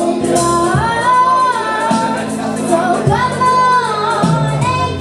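A young girl singing a ballad into a microphone over a karaoke backing track, holding two long notes, one about a second in and one about three seconds in.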